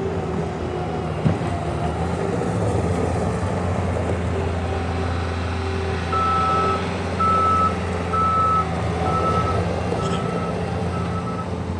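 Bobcat S76 skid steer loader's 74 hp turbo diesel running steadily; about halfway through its backup alarm starts beeping, a little more than once a second, as the machine reverses.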